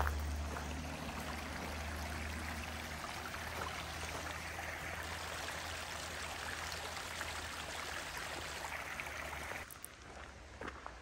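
Running stream water, a steady rushing hiss, with a low rumble under it at the start. It cuts off abruptly near the end.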